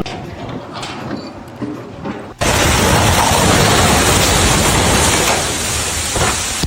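A loud, steady rushing noise starts suddenly about two and a half seconds in, after a quieter noisy stretch.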